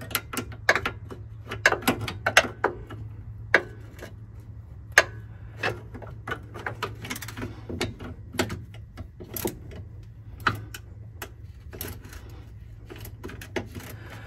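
Irregular clicks and light metallic taps of a wrench working on the steering rack's power steering line fittings as they are being loosened, over a low steady hum.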